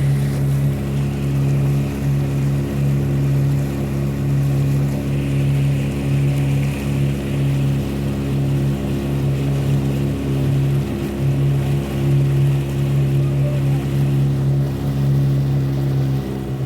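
Boat engine running steadily, a low hum that holds the same pitch throughout.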